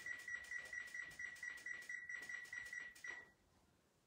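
Kitchen appliance control panel beeping in a rapid, even string of high beeps while a cooking timer is being set. The beeps stop about three seconds in.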